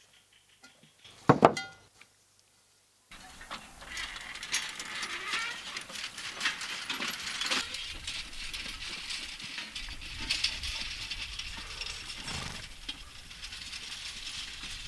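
A short, loud animal call about a second in, like a bleat. From about three seconds there is a steady hiss scattered with small clicks and knocks.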